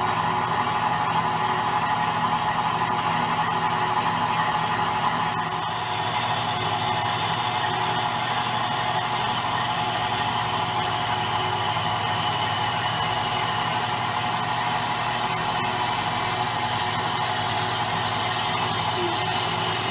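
Horizontal metal-cutting bandsaw running steadily, its blade cutting down through a 1.5-inch square bar of mild steel; a constant machine drone that drops slightly in level about five and a half seconds in.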